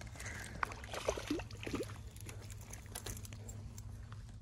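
A small hooked fish splashing as it is pulled out of the river, with water dripping and a few short clicks in the first couple of seconds.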